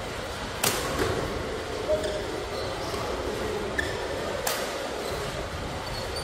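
Badminton rally: sharp cracks of rackets striking the shuttlecock, clearest just under a second in and again at about four and a half seconds, with a few fainter hits between. Brief high squeaks of shoes on the court mat come through a steady hall background.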